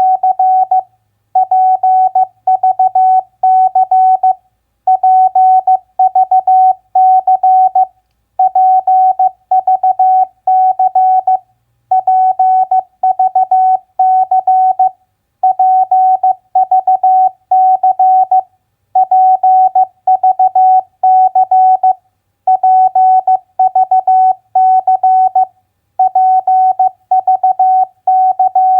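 Morse code (CW) practice tone at 15 words per minute: a single steady pitch keyed on and off in dots and dashes, spelling out three-letter words, with a short pause after each word, about one word every three and a half seconds.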